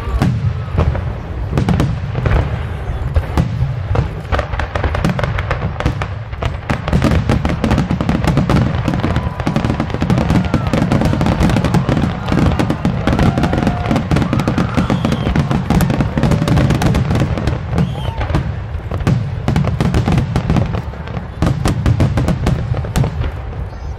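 Aerial fireworks display: many shells bursting in a dense, overlapping run of bangs and crackles over a low rumble.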